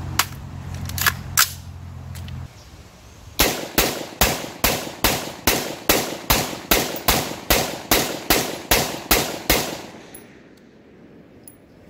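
Inter Ordnance M215 AR pistol with a 7.5-inch barrel, chambered in 5.56 NATO, fired rapidly in semi-automatic: a steady string of about seventeen shots, roughly three a second, over about six seconds. The gun cycles every round without a stoppage.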